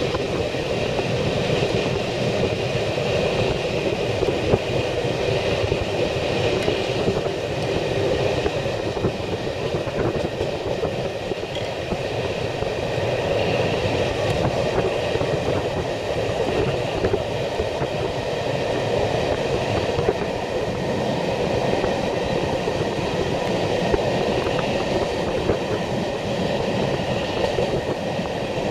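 Steady running noise of a train heard from inside the carriage: a continuous rumble of wheels on the rails with a few faint clicks.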